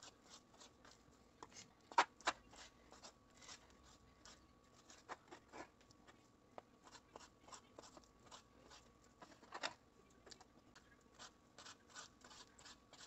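Knife cutting raw chicken breast into pieces on a cutting board: faint, scattered scrapes and clicks of the blade on the board, with a couple of louder taps about two seconds in.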